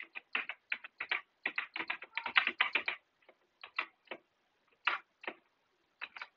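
Typing on a computer keyboard: a quick run of keystrokes for about the first three seconds, then slower, scattered key presses.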